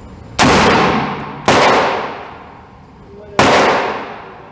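Three rifle shots from a Ruger 5.56 rifle, the first two about a second apart and the third about two seconds later. Each shot echoes and dies away over about a second, like shooting in a canyon.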